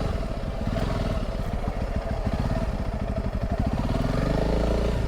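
Motorcycle engine running steadily while riding along a sandy track, with some rattling.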